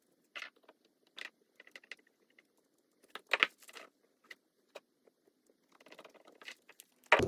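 Scattered light clicks and taps of small plastic parts and a small screwdriver being handled while a micro servo is screwed back into place, with the loudest cluster of clicks about three and a half seconds in.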